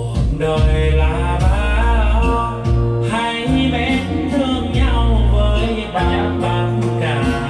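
A song with a singing voice and heavy bass, played loudly through a soundbar under test.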